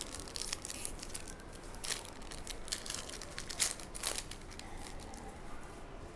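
Trading cards being handled and flicked through: a run of short crisp rustles and snaps of card stock sliding over card, busiest in the first four seconds and fainter after.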